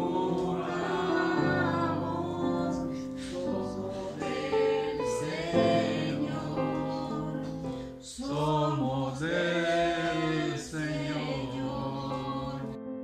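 Christian song: voices singing with instrumental accompaniment.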